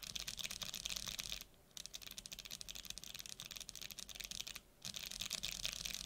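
Bare Kailh BOX Mute Jade clicky keyboard switches, with no keycaps fitted, pressed rapidly over and over on a mechanical keyboard: a dense clatter of switch clicks in three runs broken by two short pauses.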